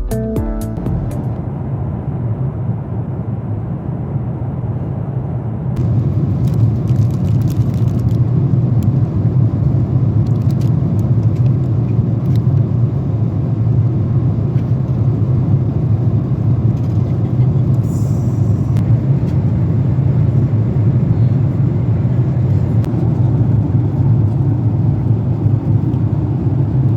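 Steady low rumble of airliner cabin noise aboard a Boeing 777-300ER, getting louder and brighter about six seconds in.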